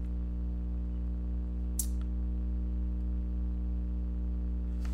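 Steady low hum with many evenly spaced overtones, and a single faint click about two seconds in.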